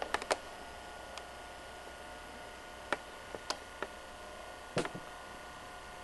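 Quiet room tone with a steady faint hum, broken by a handful of light clicks and ticks. The loudest click comes about five seconds in.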